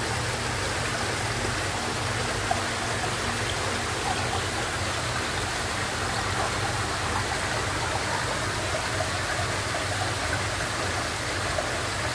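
Water jetting from a PVC inlet pipe into a koi tank: a steady rushing splash across the surface, over a steady low hum.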